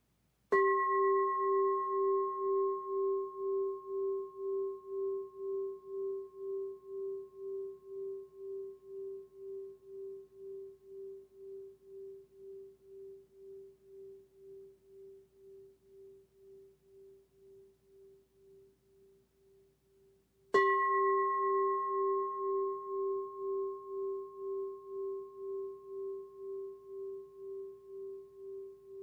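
Meditation singing bowl struck twice, about twenty seconds apart. Each strike rings on and fades slowly, with a low main tone that wavers in a steady pulse, about twice a second, under fainter, higher overtones that die away sooner.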